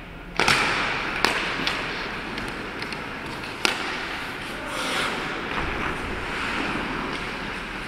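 Ice hockey sticks clattering at a faceoff about half a second in, then several sharp cracks of sticks striking the puck, over the steady scrape of skates on the ice.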